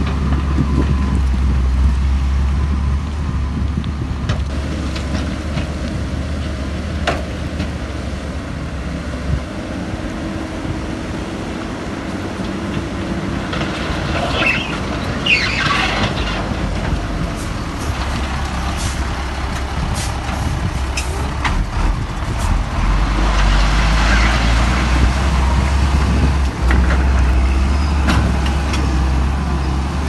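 Diesel engines of heavy earthmoving machinery running. The deep engine drone drops away about a third of the way in and returns later. There are two short hissing bursts about halfway through, and scattered knocks and clanks.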